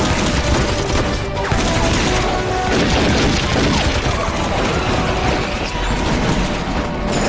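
Battle sound mix of massed rifle fire and splashing through water, with dramatic background music.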